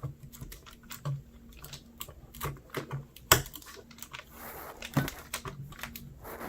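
Small plastic clicks and taps of a RAM stick being pressed down into a motherboard memory slot, with two sharper clicks, about halfway and about three-quarters through, as the module seats.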